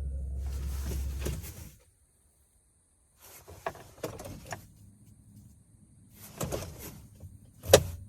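A low steady hum cuts off about one and a half seconds in; after a pause come two clusters of clicks and knocks, the sharpest click near the end. This is the ignition being switched and the unexplained knocking from behind the dashboard of a GAZ van that comes on with the ignition, with the engine not running.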